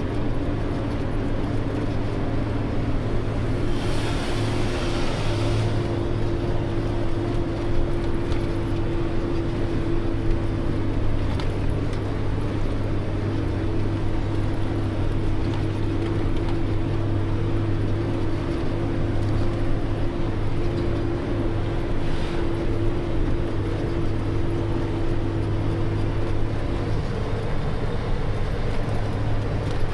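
Isuzu FVZ 280 truck's diesel engine running at a steady speed, with a hiss lasting about two seconds a few seconds in.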